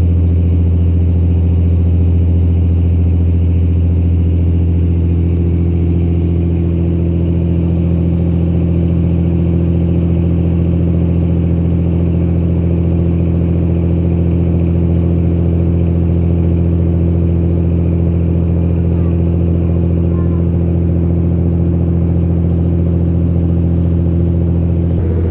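Large engine's steady low drone, holding an even speed throughout, heard from on board.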